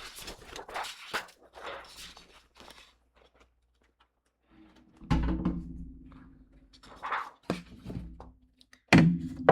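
Paper scraps and acetate rustling and crinkling as they are handled, then two loud, hollow thunks about four seconds apart.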